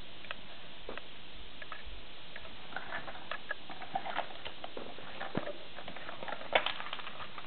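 Light, scattered clicks and taps of small plastic toy parts being handled, as a pink plastic toy carriage and its pieces are moved about by hand. A sharper clack stands out about six and a half seconds in.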